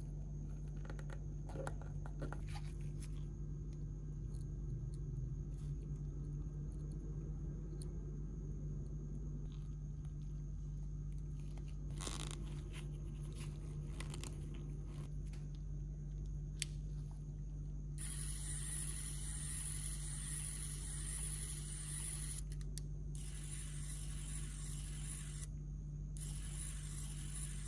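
Small handheld electric screwdriver with an N20 gear motor: scattered handling clicks, then about 18 s in the motor runs in three stretches of a few seconds each with short pauses between.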